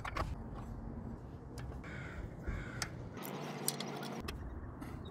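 Light metallic clicks and taps of a scooter's rear disc brake caliper being handled and fitted back in place, with two short bird calls about two seconds in.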